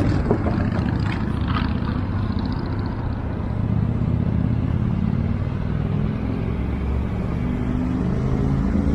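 Street traffic: a motor vehicle engine running close by with a steady low rumble and hum.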